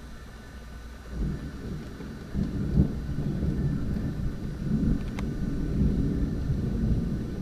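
Thunder rumbling: a low, rolling rumble starts about a second in, is loudest near three seconds, then keeps rolling.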